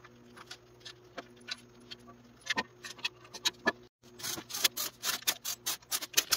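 Light metallic clicks of bolts being handled and started into a 4L60E transmission's bellhousing. From about four seconds in, a cordless impact driver runs the bellhousing bolts down in bursts of rapid hammering.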